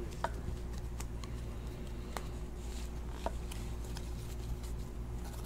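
A stack of cardboard basketball trading cards being squared up and fanned through by hand, giving scattered faint clicks and taps over a steady low hum.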